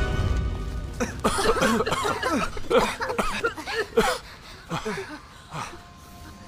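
Several people coughing and gasping one after another, choking on smoke from a house fire. A low rumble dies away in the first second, and soft held music notes come in near the end.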